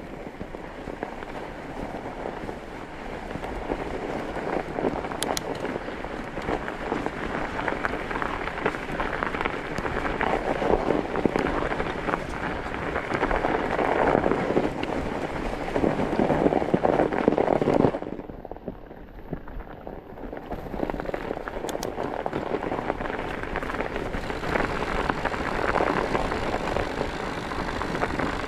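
Fat bike tyres wrapped in chains rolling over snow and ice: a continuous crackling crunch that drops away for about two seconds about two-thirds of the way through, then resumes.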